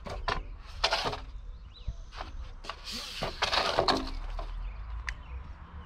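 Long hollow plastic sleeve pipes knocking and scraping against each other and on loose gravel as they are moved into place. The knocks and scrapes come irregularly, busiest about three to four seconds in, with a single sharp click near the end.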